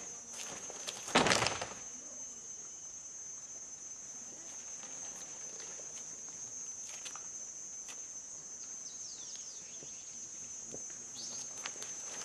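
A steady high-pitched insect buzz, with one loud, short burst of noise from the dancers' group movement about a second in, and a few faint bird chirps near the end.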